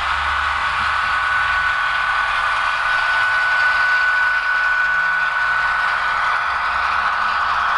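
HO-scale model diesel locomotives running along the layout track, giving a steady engine-like drone with a thin, high, even hum over it.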